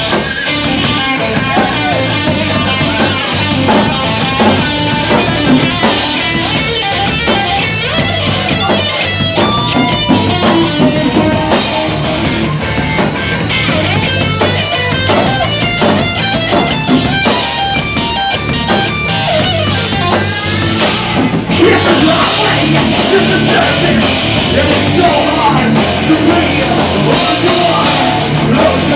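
A live rock band playing an instrumental passage: electric guitar, bass and a drum kit with crashing cymbals, loud and dense throughout.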